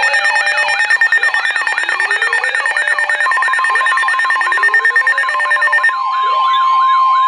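Several emergency alert tones sounding over one another: fast rising-and-falling siren-like wails, stepped beeping tones and short rising glides. A steady single tone joins about three seconds in. Most of the wails drop out about six seconds in, leaving the steady tone and a few wails.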